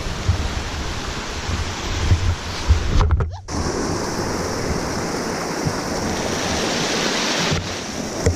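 Small mountain creek rushing over rocks in a white-water cascade close below, a steady, full hiss. In the first few seconds wind buffets the microphone with low thumps, and a brief dropout about three seconds in is followed by steadier, brighter water noise.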